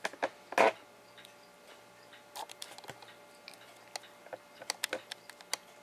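Handling noise: scattered light clicks and taps, with a short rustle about half a second in.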